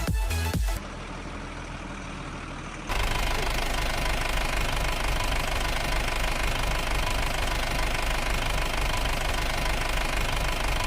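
An engine running steadily with a rapid, regular low knock, after a short tail of electronic music and a quieter stretch in the first few seconds.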